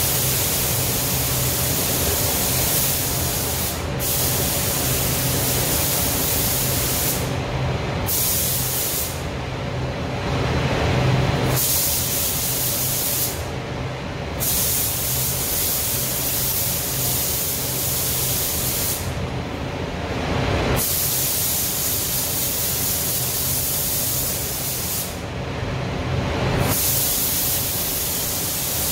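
Gravity-feed paint spray gun hissing as coats go on in passes. The spray cuts off about six times for a moment to two seconds as the trigger is let go between passes. Underneath runs the spray booth's steady ventilation drone.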